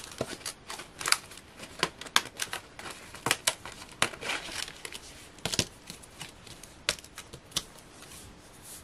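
Stiff card clicking and crackling as die-cut toppers are pushed out of a Hunkydory printed cardstock topper sheet, with the sheet rustling under the fingers. The clicks come irregularly and thin out near the end.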